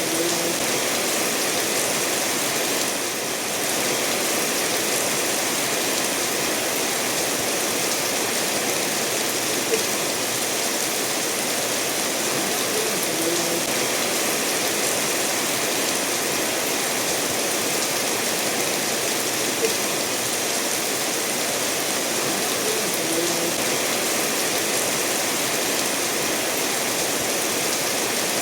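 Steady rain falling together with a stream running over stones, an even, unbroken rush of water, with a few brief plinks standing out from it.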